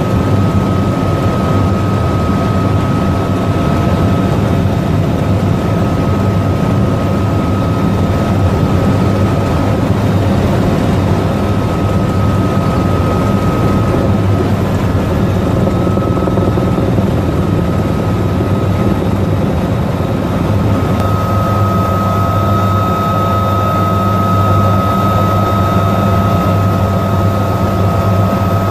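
AH-1Z Viper attack helicopter in flight, heard from inside the cockpit: the steady loud drone of its twin turboshaft engines and rotor, with a constant high whine over it.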